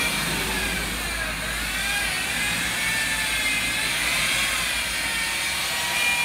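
Corded electric detailing tool's motor whining steadily at high pitch, the tone wavering slightly up and down as it works over the motorcycle's bodywork.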